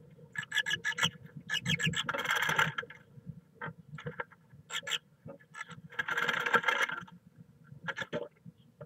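Great tit scratching and shuffling in the moss lining of a wooden nest box as it turns in the nest cup: three bursts of scraping about a second long, with single sharp scratches in between.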